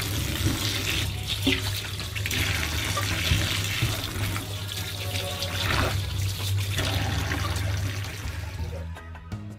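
Kitchen tap running into a sink, water splashing steadily, then cutting off near the end.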